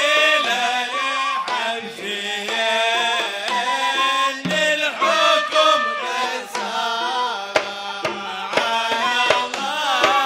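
Hadhrami zarbadi song: men's voices singing a sung poem in a winding melody over hand drums beating a steady rhythm.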